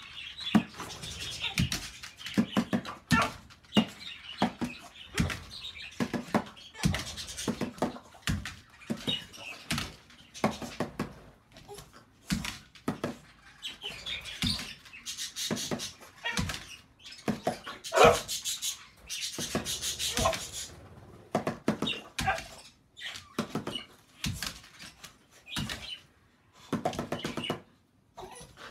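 A spoon tapped like a drumstick on a hot chocolate container in quick, irregular taps. A French Bulldog–Beagle mix dog jumps at it and gives short high-pitched cries, loudest about 18 seconds in.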